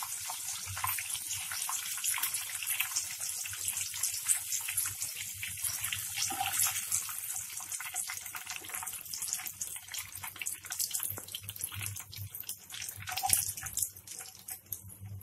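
Prawns frying in hot oil in a pan, a steady crackling sizzle that thins out toward the end as the oil calms.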